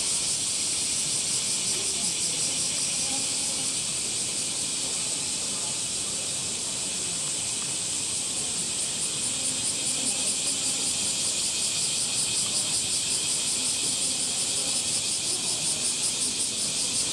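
Chorus of cicadas: a steady, high-pitched hiss with a fast shimmering pulse.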